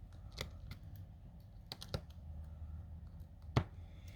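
Steel tweezers picking tiny screws out of a smartphone's frame and setting them down: a handful of light, sharp clicks at irregular intervals, the loudest about three and a half seconds in.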